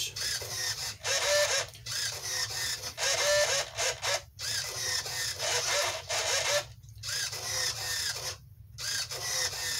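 Hobby servos (Airtronics 94102 and Tower Hobbies TS-53 standard servos in the fuselage tray, with a Futaba S3010 on the nose wheel) sweeping back and forth, their small motors and gear trains whining in about five runs of around two seconds each with short pauses between. The pitch bends up and down as they move. They are running on a single-cell 3.7 V LiPo and the moves do not sound weak.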